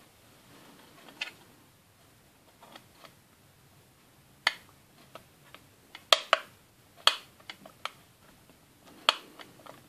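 Sharp little plastic clicks and taps, irregularly spaced, as small handles are pressed into the doors of a Playmobil toy wardrobe and the plastic piece is handled. A few scattered clicks at first, then a busier run of them from about halfway through.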